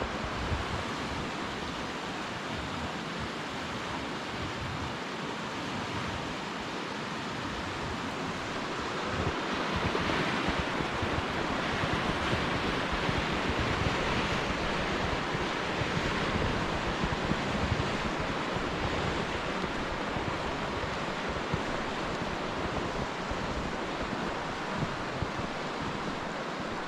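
Wind in a snowstorm: a steady rushing hiss that swells somewhat in the middle, with wind buffeting the microphone.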